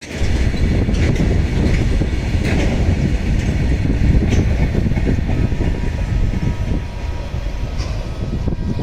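The Samta Express, an express passenger train, running on the track: a loud, steady rumble with sharp clacks of wheels over rail joints. A faint steady tone joins about halfway through.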